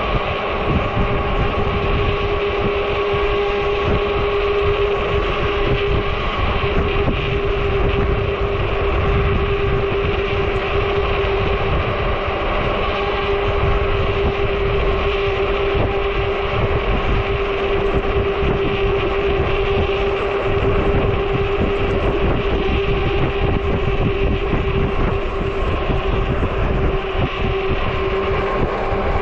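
Ecotric 20-inch fat-tire 48 V e-bike riding steadily: a constant whine from the hub motor over fat-tire road rumble and wind buffeting the microphone.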